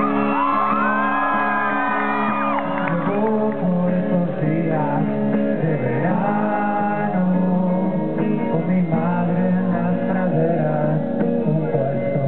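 Live rock band music played through a large PA: guitars carrying the song, with voices singing and shouting over it, most strongly in the first couple of seconds.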